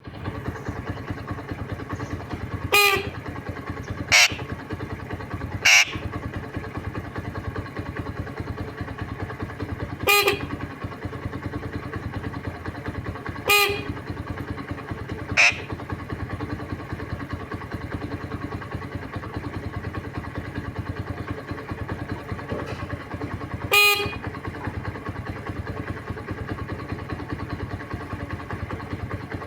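A parrot mimicking a motorcycle horn: seven short, loud honks spread irregularly, some with a buzzy horn-like tone and others higher and thinner like a whistle, over a steady low hum.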